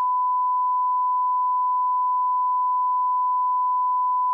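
A single steady electronic beep, one pure pitch held at an unchanging level, with no other sound beneath it.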